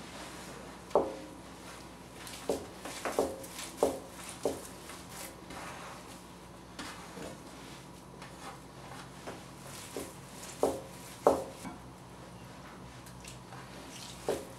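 Hands kneading raw ground meat and soaked bulgur for kibbeh in a large round metal pan, heard as irregular knocks and clanks of the pan, about a dozen, with the loudest about a second in, around three to four seconds in, and around eleven seconds in.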